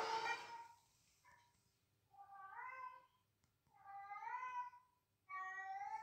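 A cat meowing: a louder call fades at the start, then three separate drawn-out meows follow, each under a second, about a second and a half apart.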